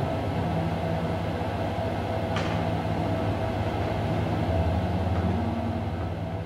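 Steady low electronic drone: a hum of several low tones under a fainter held higher tone and a hiss, with a single sharp click about two and a half seconds in.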